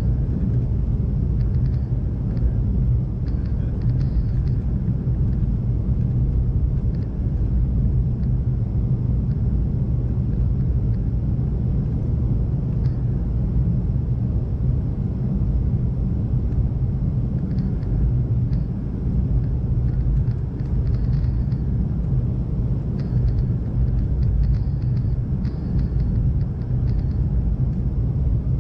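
Steady low rumble of a McDonnell Douglas MD-88 airliner in operation, its rear-mounted Pratt & Whitney JT8D turbofans and the rushing air heard from inside the cabin, holding an even level throughout.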